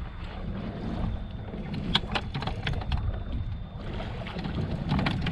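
Steady low rumble of a fishing boat on open water, with a few sharp clicks and knocks, about two seconds in and again near the end.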